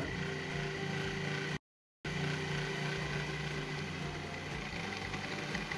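Food processor motor running steadily while water is poured in to mix flour and lard into tortilla dough. The sound cuts out completely for a moment about a second and a half in, then carries on.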